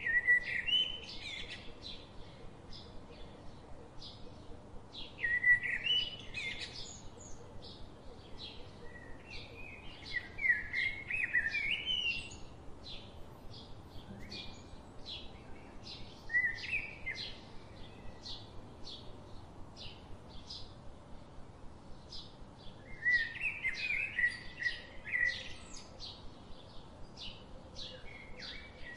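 Songbirds singing: short chirping phrases every few seconds over a steady run of short high chirps, about three a second.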